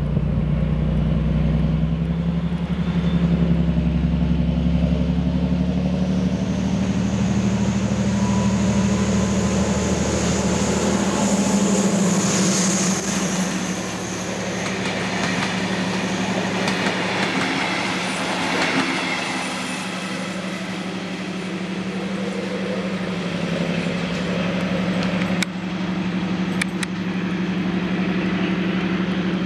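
MÁV M41 diesel-hydraulic locomotive's Pielstick V12 diesel engine working hard as the train accelerates, its steady deep note climbing slightly in pitch over the first few seconds. Wheel and rail noise swells as it passes close by near the middle, and the engine note carries on as it draws away.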